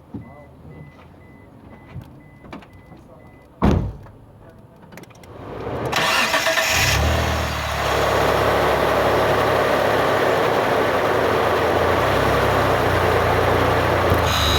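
A single loud thump a little under four seconds in, then a Pontiac GTO's V8 engine starting about six seconds in, with a brief loud burst, and settling into a steady idle.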